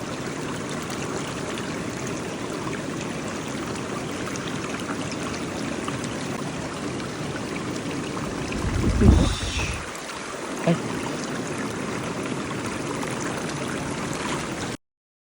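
Mountain stream water running steadily over rocks. About nine seconds in there is a brief low rumble on the microphone, and the sound cuts off suddenly near the end.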